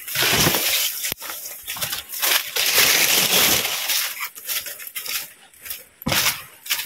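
Footsteps crunching and rustling through dry leaves and undergrowth: a dense run of crackling for the first few seconds, then sparser, separate crackles.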